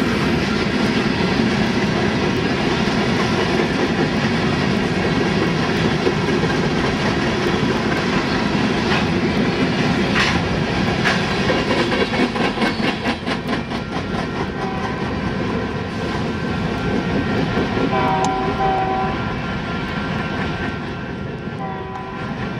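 Freight train cars rolling past at close range, their steel wheels clicking over the rail joints in quick runs, heaviest about ten to thirteen seconds in. The rumble eases off near the end as the train draws away.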